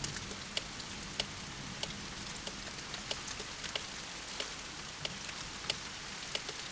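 Rain falling steadily, with single heavy drops striking a hard surface close by every half second or so.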